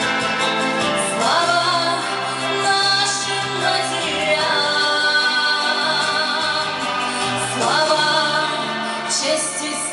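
A song performed with a singer holding long notes, sliding up into phrases about a second in and again near the end, over instrumental backing with a steady bass line.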